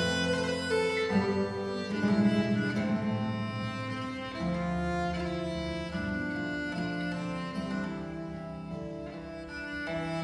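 Instrumental folk music led by bowed string instruments, with long held notes over a low line that shifts pitch a few times.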